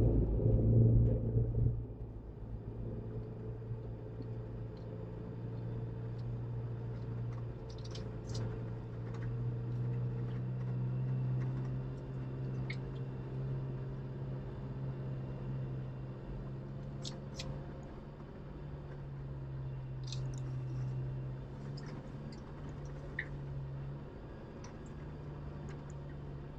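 Jeep engine running at low trail speed, heard from inside the cabin as a steady low hum, louder for the first couple of seconds and then settling. Scattered light clicks come through now and then.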